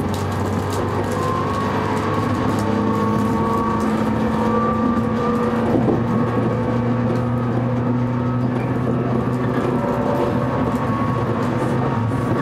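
Electric train running along the track, heard from the cab: a steady motor hum with several held tones that shift in pitch about halfway through, over continuous wheel-on-rail rumble.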